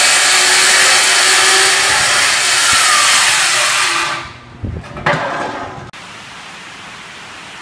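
Skilsaw circular saw cutting through the aluminum outboard engine bracket, loud and steady. About four seconds in the cut ends and the saw winds down, with a couple of knocks, then a faint steady hiss.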